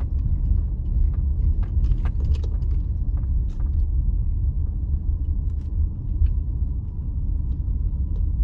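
Steady low rumble of a car's engine and tyre noise heard from inside the cabin, with a few faint clicks.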